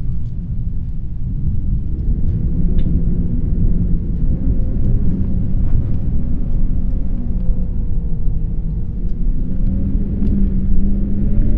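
Heavy wind blowing, a deep, steady rumble that builds over the first few seconds, with a faint howling tone that wavers slowly in pitch.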